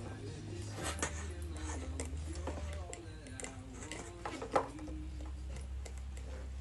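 Soft background music: a slow, gliding melody over low held notes that change about every two seconds. Light clicks of metal strap hardware being handled come through now and then, one louder near the middle.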